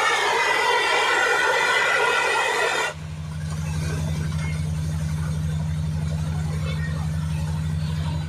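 Truck-mounted borewell drilling rig's engine and compressor running hard with a loud high-pitched whine; about three seconds in the whine cuts off abruptly, leaving a lower, steady engine drone.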